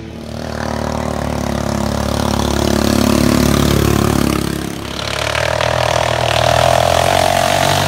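Racing ride-on lawnmower engines running hard as mowers pass close by one after another: the first grows louder, peaks and fades just before the halfway mark, and a second builds up right after it.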